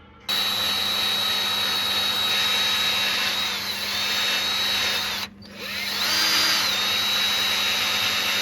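A high-speed handheld electric power tool running with a steady high whine. The pitch dips and recovers as the tool is loaded, then it stops for a moment about five seconds in and starts again.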